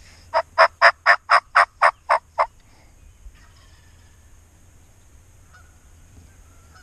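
A turkey call worked by a hunter, giving a run of about nine hen yelps at roughly four a second that stops after about two and a half seconds: a hen yelp sequence meant to draw in a gobbler.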